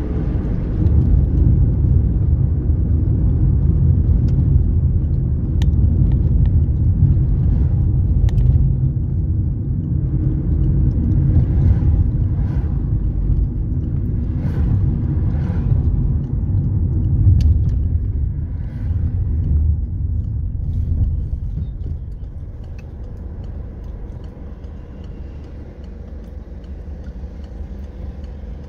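Road and engine noise heard from inside a moving car: a steady low rumble that becomes noticeably quieter about two-thirds of the way through.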